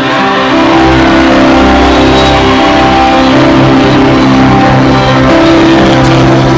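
Loud music with held chords; a bass line comes in about half a second in.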